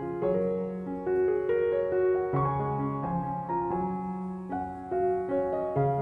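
Background piano music: a melody of short notes over longer held bass notes.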